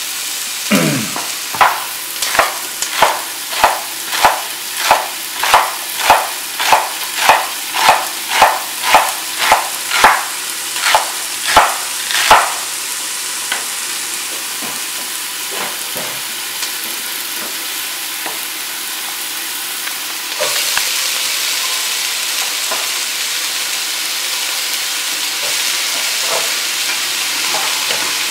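Chef's knife chopping celery on a wooden cutting board: about twenty even strokes at roughly one and a half a second, over the steady sizzle of diced onions sautéing in oil. The chopping stops about twelve seconds in; the sizzle carries on alone and grows louder about twenty seconds in.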